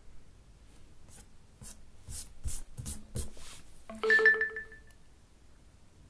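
A quick series of about six short scratchy noises, then the HTC 10 smartphone plays a short electronic chime about four seconds in: a pulsing two-tone ping that fades within a second.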